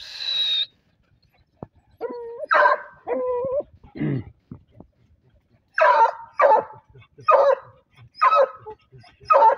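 Hunting dogs whining and barking as they dig into a paca's burrow, excited at the quarry inside. A few drawn-out whines come around two to three seconds in, then a run of five short barks under a second apart in the second half.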